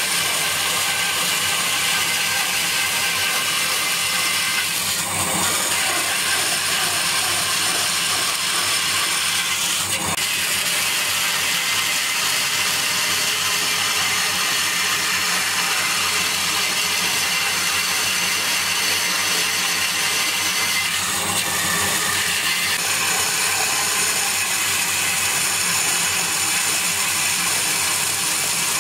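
Bandsaw running and cutting through a thick block of wood: a steady, unbroken noise with a high whine, shifting slightly a few times as the block is pushed and turned along the marked outline.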